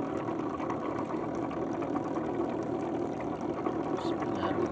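A small engine running steadily: an even, low drone that holds the same pitch and level throughout.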